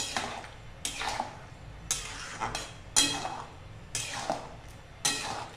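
Metal spoon scraping and clinking against a metal kadhai as thick lemon pickle is stirred while it cooks, in repeated strokes about once a second.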